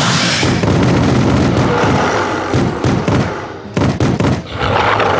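Loud sound effects of a giant ape rampaging: heavy crashing and thudding, dense at first, then a quick run of separate booming hits in the second half.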